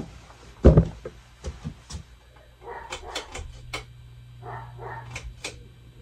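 A dog barking in short bursts, with one loud thump about a second in. A steady low hum comes in about halfway through.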